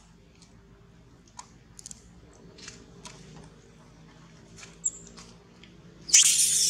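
Faint, scattered clicks of macaques chewing food, then about six seconds in a baby long-tailed macaque breaks into a loud, shrill scream.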